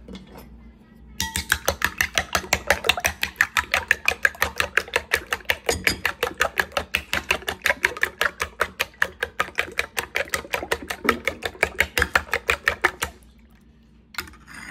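Raw eggs being beaten by hand in a ceramic bowl, the fork clicking rapidly against the bowl about six times a second. The beating starts about a second in and stops about a second before the end.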